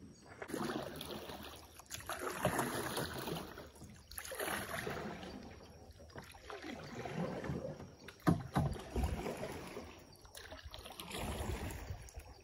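Paddle strokes swishing through water as a small boat is paddled along, one swell of sound about every two seconds. A single sharp knock about eight seconds in.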